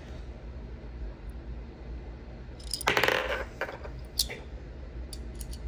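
Metal clicks and a brief clatter from a Cyberball magnetic fidget toy, its balls knocking against the metal body. The clatter comes about three seconds in, a single sharp click follows a second later, and a few light ticks come near the end.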